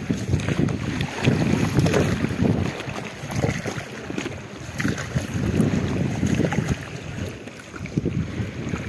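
Wind buffeting the microphone over river water sloshing around a bamboo coracle as it is paddled, the rushing noise swelling and easing every second or two, with scattered small knocks.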